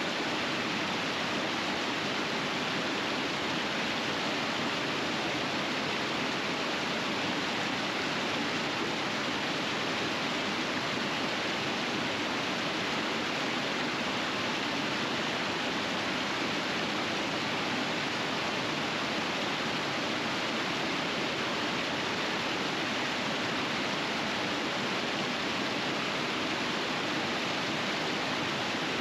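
River rapids in winter flowing steadily: an even, unbroken rush of water.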